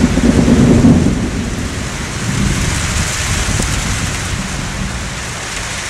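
Monsoon thunder rumbling, loudest in about the first second and then fading away, over steady heavy rain falling.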